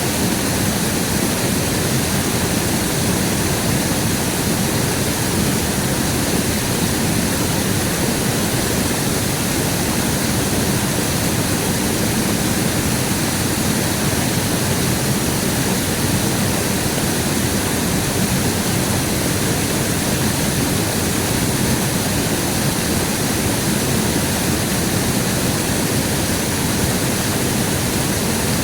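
River water rushing steadily, a constant even noise with no breaks.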